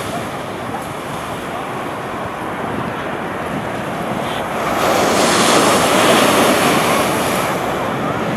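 Surf washing onto the beach, with wind buffeting the microphone; the wash swells louder about five seconds in.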